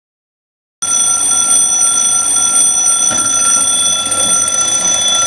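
Twin-bell alarm clock ringing loudly and continuously: a steady, high metallic ring that starts suddenly out of silence about a second in.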